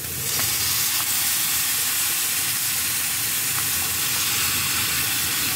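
Soy sauce being poured onto chopped chicken on a hot flat-top griddle, sizzling: a steady hiss that jumps up as the sauce hits the hot metal and holds at that level.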